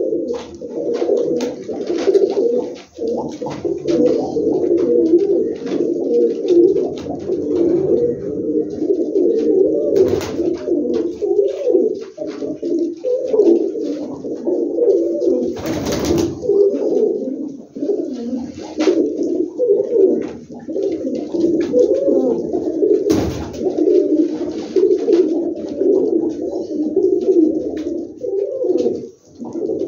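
A flock of domestic pigeons cooing continuously, many calls overlapping into one steady chorus in a small enclosed loft. A few short sharp clatters break in, the loudest about sixteen seconds in.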